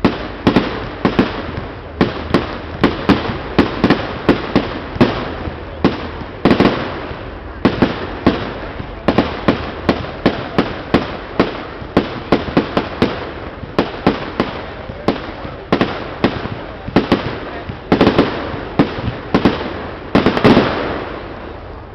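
A display of aerial fireworks going off in a rapid, continuous string of bangs, about two or three a second, with crackle between them and the loudest bang near the end.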